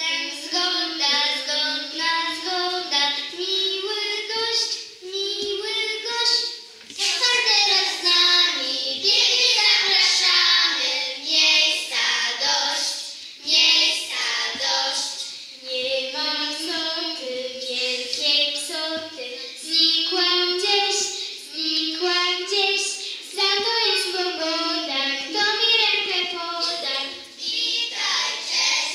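Children's voices singing a song, with short breaks between phrases.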